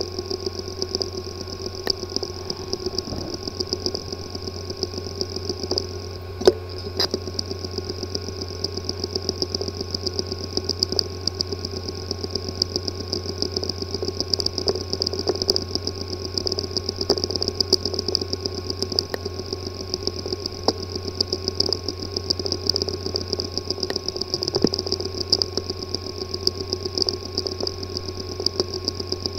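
Hard disk drive with a physically damaged disk assembly, powered up: a steady hum with a fast, uneven run of ticks and clicks, one louder click about six seconds in. It is the clicking of a failed drive that is not accessible.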